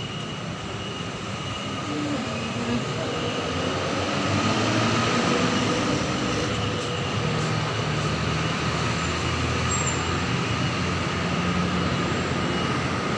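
Steady street traffic rumble from passing motor vehicles. It swells a couple of seconds in and then holds.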